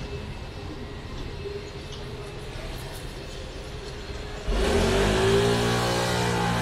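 Low steady street noise, then about four and a half seconds in a motor vehicle's engine comes in suddenly and loud close by, rising in pitch as it accelerates and then running steady.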